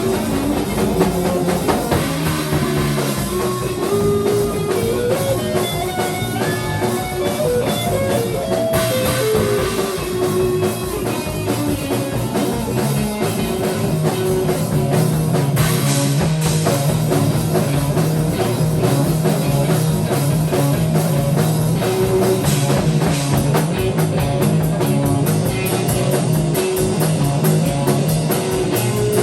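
Instrumental rock jam: a drum kit playing a steady beat under guitar, with a melodic line climbing in steps over the first several seconds and sustained low notes through the second half.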